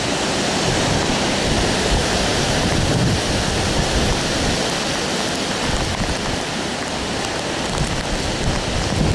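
Strong hurricane wind gusting through tall trees, a steady rushing noise that swells and eases, with the wind buffeting the microphone.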